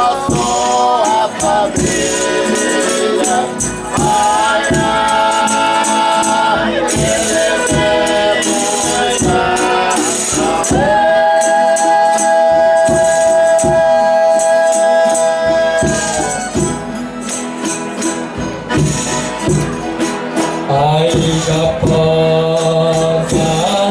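Folia de Reis company singing in several voices over tambourine and rattle strikes, with a long held chord from about eleven to sixteen seconds in.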